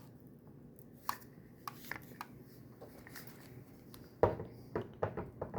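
Scattered plastic clicks and knocks from an Xbox power brick's housing as its internals are pried and rocked loose. The loudest knock comes about four seconds in, followed by a quick run of clicks.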